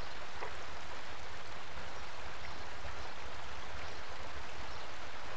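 Steady rushing of a flowing river, an even noise with no breaks.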